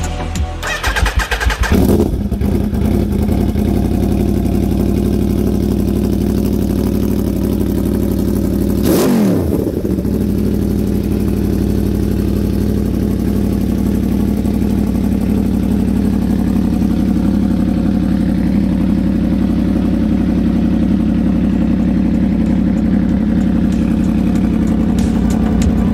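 Aprilia Tuono V4's V4 engine idling steadily through an SC Project carbon slip-on exhaust, with one brief throttle blip about nine seconds in.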